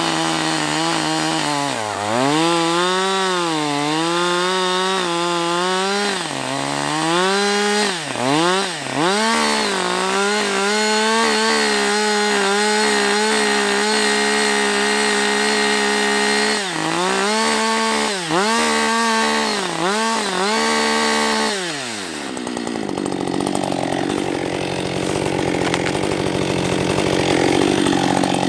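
Two-stroke chainsaw cutting into wood, revving up and dipping in pitch as it bogs in the cut, holding a steady pitch under load for several seconds. Near the end the engine drops back to a low idle.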